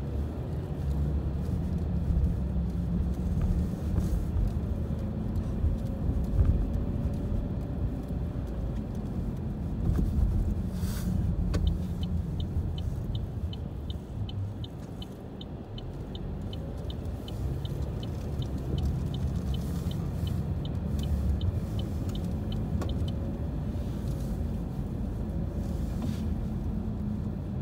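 Car cabin noise while driving: a steady low rumble of engine and tyres on the road. For about eleven seconds in the middle, a turn signal ticks evenly, about three ticks a second, as the car turns.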